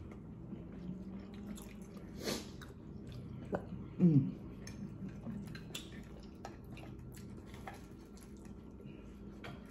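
A person chewing and slurping spaghetti, with many small wet mouth clicks. A short hum comes about four seconds in.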